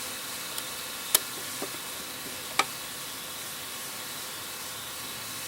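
Steady background hiss with a few light clicks of small engine parts being handled; the two sharpest come about a second in and about two and a half seconds in.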